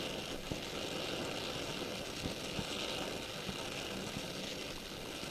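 Gas welding torch flame hissing steadily while the joint is being welded, with a few faint ticks.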